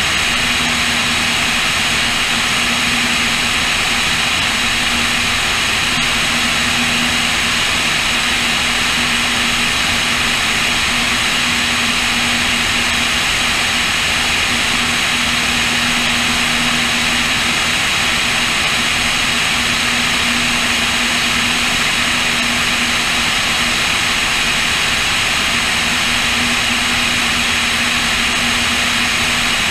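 Cessna O-2A's push-pull twin piston engines droning steadily in level flight, heard through heavy wind rush on the wing-mounted camera: a steady low hum under a loud, even hiss.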